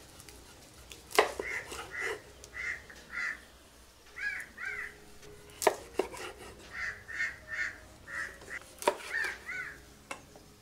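A large knife chopping through a fish into steaks on a wooden board: three sharp chops a few seconds apart. Between them a bird calls over and over in short notes.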